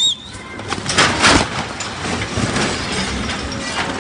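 Crawler crane toppling over the edge of an excavation and crashing down: a loud crash about a second in, followed by a rough, noisy rumble that settles into steady background noise.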